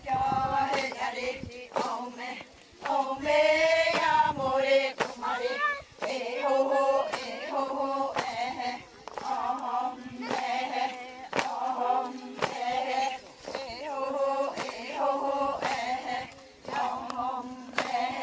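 A group of women chanting in unison, repeating a short sung phrase over and over. A sharp beat falls about once a second under the singing.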